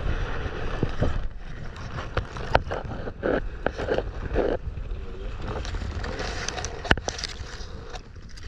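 Muffled water movement and low rumble heard through a GoPro's waterproof housing held underwater, with scattered sharp clicks and knocks, the loudest about seven seconds in.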